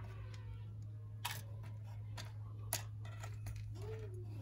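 Small metal and plastic jewelry pieces clicking and clinking as fingers sift through them in a wooden box, with two sharper clicks about a second and a half apart, over a steady low hum.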